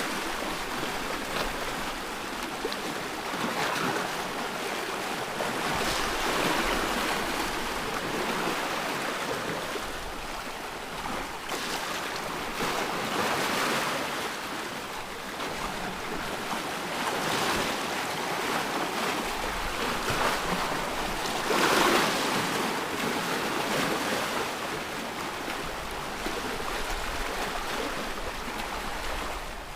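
Ocean waves breaking and washing ashore: a continuous rush that swells and ebbs every few seconds, with one larger wave about three-quarters of the way through.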